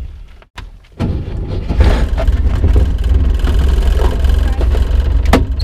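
Old car's engine running with a steady low rumble that starts abruptly about a second in.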